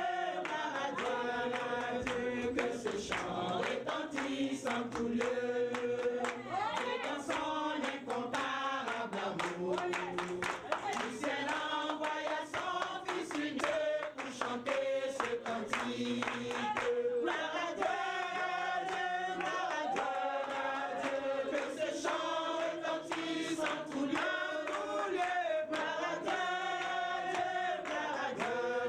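A small church choir of men and women singing a worship song together, led by a woman singing into a microphone, with long held notes.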